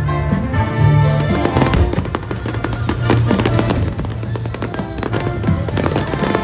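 Music playing, with fireworks crackling and popping over it throughout.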